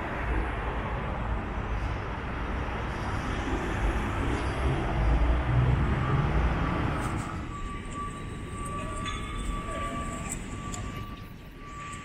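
Outdoor city traffic: a vehicle passes with a rushing rumble that is loudest about halfway through and fades after about seven seconds. After that a steady high-pitched whine runs, with a few light ticks.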